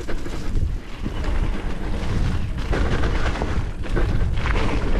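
Mountain bike riding down a dirt trail: wind buffeting the microphone in a heavy low rumble, over a steady rush of tyre and trail noise with a few knocks as the bike rolls over bumps.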